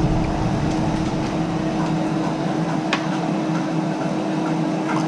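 Steady mechanical hum with a constant low tone, and a single light click about three seconds in.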